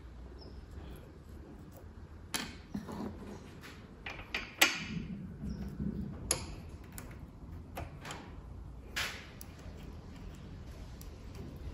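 Small metallic clicks and rattles of a roller chain being handled while its joining link is fitted, a sharp click every second or so over a low steady hum.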